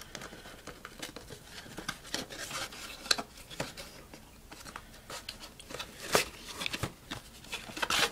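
Cardboard packaging being handled: a printed paperboard SSD retail box opened and an inner cardboard box slid out of it, with irregular rustling, scraping and sharp clicks.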